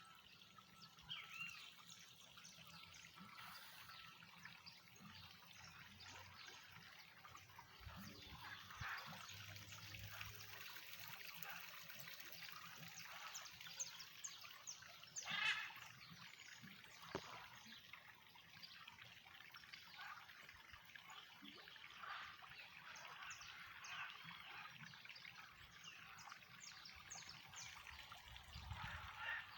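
Faint trickle of running water in a stream, a steady soft babble with small irregular splashes.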